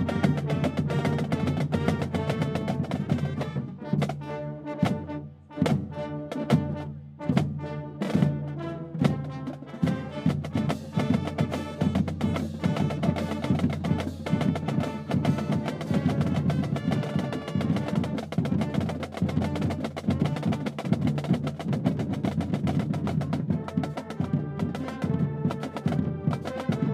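Marching pep band of saxophones, sousaphones, trombones, trumpets and flutes with drums, playing a tune. A few seconds in the band plays a sparser passage of short punched hits, then returns to full sustained playing.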